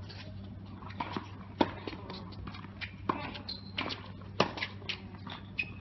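Tennis rally on an outdoor hard court: sharp pops of rackets striking the ball and thuds of the ball bouncing, about one every second, with the loudest hits about a second and a half in and again past four seconds. A couple of short squeaks come in between.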